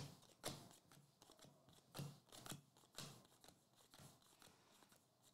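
Faint flicks and soft clicks of baseball trading cards being slid one at a time through a stack in the hands, a few separate clicks spaced about half a second to a second apart.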